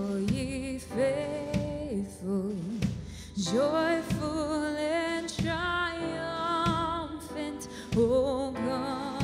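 A woman singing a slow, sustained melody with vibrato, accompanied by chords on a Yamaha stage keyboard.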